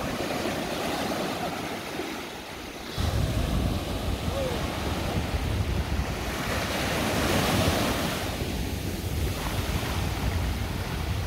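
Small surf waves breaking and washing up a sandy shore. From about three seconds in, wind buffets the microphone with a low rumble.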